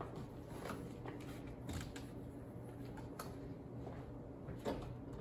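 Quiet room tone with a steady low hum and a few faint, scattered clicks and taps, about five in all.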